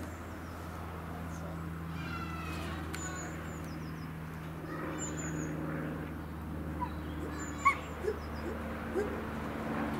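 Gibbon whooping: short rising hoots that start about seven seconds in and come faster and louder toward the end, the opening of a call. Under it runs a steady low hum, with a few faint high chirps.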